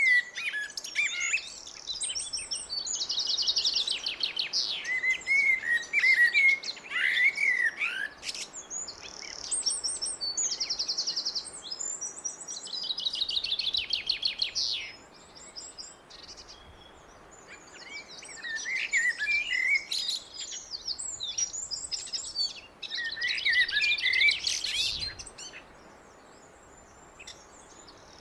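Blackbird singing: repeated song phrases a few seconds long with short pauses between them, mixing lower whistled, gliding notes with high, fast trills.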